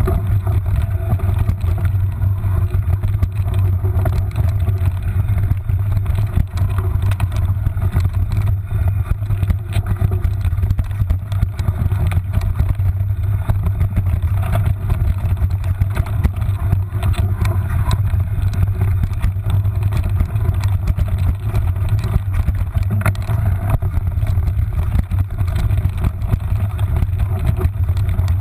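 Mountain bike riding fast down a rough forest trail, picked up by a handlebar-mounted GoPro HD960: a loud, steady low rumble with constant small knocks and rattles as the bike runs over the bumpy ground.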